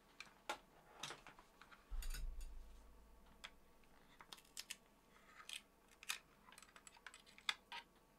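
Scattered light clicks and taps of small items being handled on a desk, with a dull bump about two seconds in.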